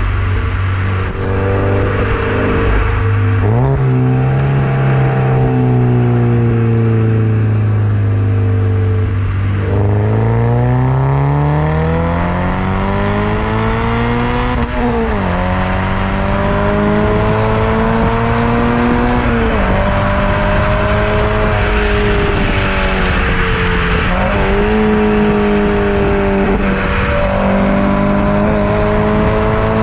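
Toyota GT86's 2.0-litre flat-four engine running through a Milltek non-resonated cat-back exhaust while driving. It holds steady revs, then rises in pitch as it accelerates, drops sharply about halfway through as the revs fall, and climbs slowly again with a few brief dips.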